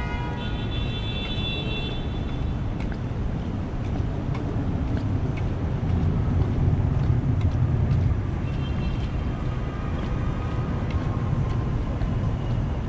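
City street traffic rumbling steadily, swelling as a vehicle passes about halfway through, with a brief high squeal near the start.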